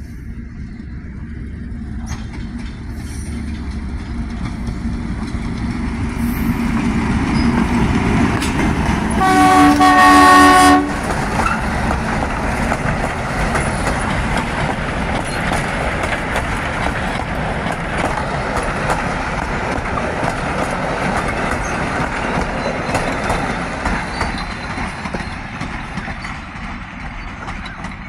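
Diesel locomotive hauling a passenger train drawing near and passing close by, its engine and wheels growing louder. It sounds one long horn blast about nine seconds in, then the carriages roll past with wheel clatter on the rail joints that fades toward the end.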